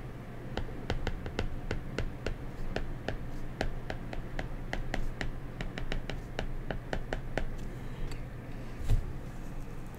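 Stylus tip tapping and clicking on a tablet's glass screen during handwriting: quick, irregular clicks, several a second, that stop a little past halfway. A soft thump follows near the end, over a low steady hum.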